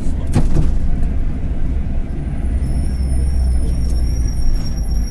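Mercedes-Benz OF-1721 BlueTec 5 bus running with a steady low drone, the title's droning bearing (rolamento roncando), a sign of a noisy bearing. There is a sharp knock about half a second in, and a thin high squeal sets in about halfway through and holds.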